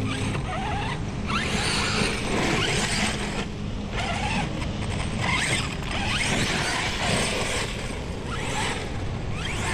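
Losi DBXL 1/5-scale RC buggy running, its brushless motor whining in short rising sweeps again and again as the throttle is worked, over a constant rattle of drivetrain and tyres on the ground.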